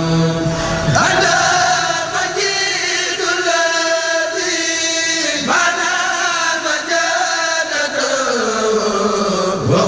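Voices chanting a devotional Arabic poem, a Mouride khassida, in long drawn-out notes that bend in pitch. New phrases start about a second in and again halfway through, and the line slides down in pitch near the end.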